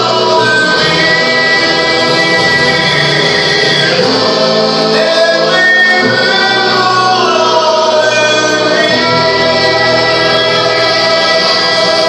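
Recorded music with a choir singing long held notes over an accompaniment.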